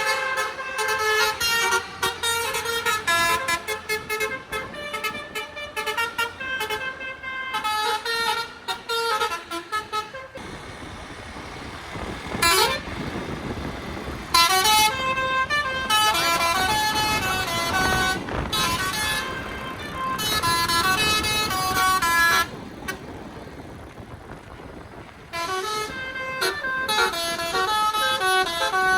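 Bus telolet horns (Basuri multi-tone horn sets) playing quick stepping melodies in loud, repeated phrases. The playing stops twice, about a third of the way in and again near three-quarters, for a few seconds of rushing engine and road noise.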